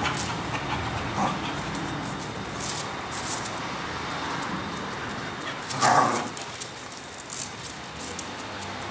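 Cocker spaniel giving one short bark about six seconds in, with a fainter yip about a second in and faint scattered clicks between.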